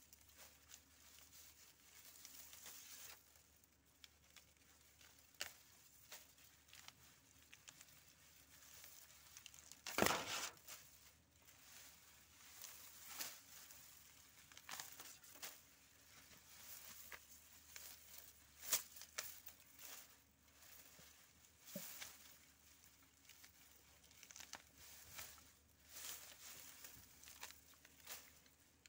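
Harvested lemongrass being pulled apart and handled: stalks and dry leaves rustling and crackling, with scattered sharp clicks. The loudest is about ten seconds in.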